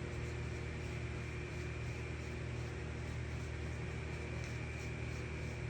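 Steady mechanical hum, like a motor or fan running, with a faint constant high whine over it.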